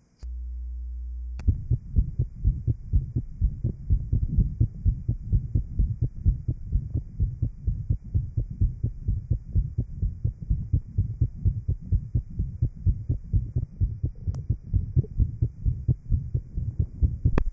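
Heart sounds recorded at the apex of a patient with a ventricular septal defect after plication of the pulmonary artery: a quick, even run of low-pitched beats. The beats are preceded by about a second of steady low hum, and there are two sharp clicks, one as the beats begin and one about two thirds of the way through.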